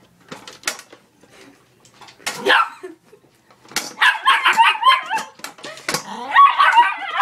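Dog barking in alarm at a trash can: one sharp bark about two and a half seconds in, then a rapid run of high-pitched barks and yips from about four seconds on.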